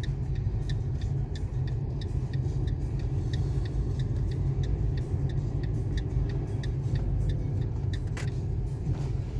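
Steady low rumble of a car's engine and tyres heard from inside the cabin while driving, with faint light ticks repeating throughout.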